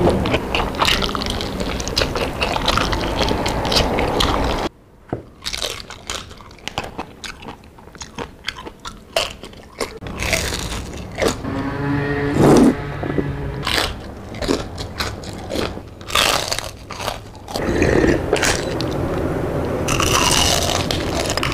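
Close-up eating sounds: a person biting into and chewing crispy fried pork and chicken, with loud dense crunching for the first few seconds, then separate sharp crunches and chewing.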